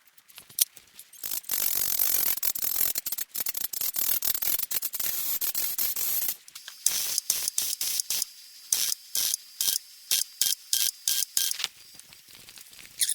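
A small power tool working a broken stud remnant in a Ford flathead V8 block. It runs continuously for about five seconds with a high whine, then comes in short bursts about twice a second.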